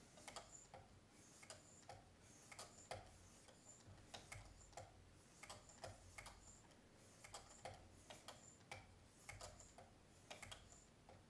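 Faint, quick sharpening strokes of 12-micron lapping film on a Work Sharp Precision Adjust's abrasive holder across a knife edge, each pass a light tick, about two a second.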